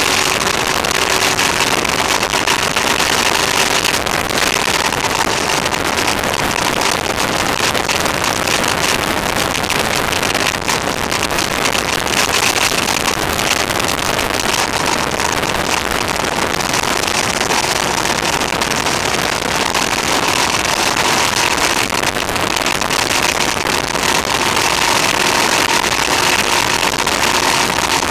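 Motorcycle riding at a steady cruising speed, heard from a bike-mounted camera: wind rush over the microphone mixed with the engine's steady drone, recorded too loud so it sounds harsh.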